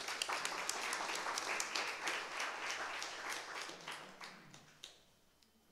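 Audience applauding, a dense patter of many hands that thins out and fades away after about four seconds.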